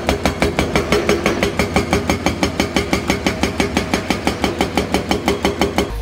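Hydraulic breaker on a Hyundai excavator hammering rock in a rapid, even rhythm of about seven blows a second, over the excavator's running engine. The hammering stops just before the end.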